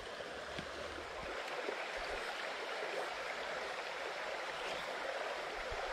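Small stream running: the steady rush of water over a riffle.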